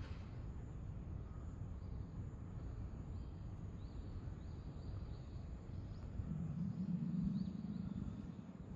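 Steady low outdoor rumble with faint, short, high bird chirps scattered through the middle. A louder low hum swells for about two seconds near the end.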